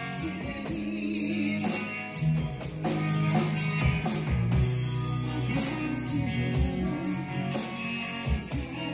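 Rock band playing: electric guitars and bass over a drum kit, with cymbals struck on a steady beat.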